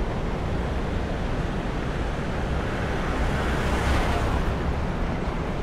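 City street traffic noise: a steady, deep rumble of passing vehicles that swells louder for about a second around four seconds in.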